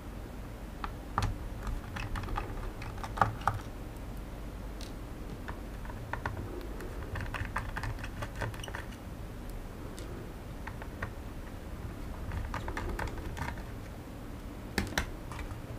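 Small screwdriver turning a screw out of an opened plastic drone remote controller: irregular light clicks and ticks of the driver in the screw and the plastic housing being handled.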